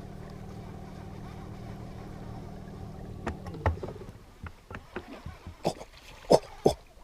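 A boat's motor hums steadily, then winds down and stops a little over three seconds in. Scattered knocks and clatters follow, a few of them loud.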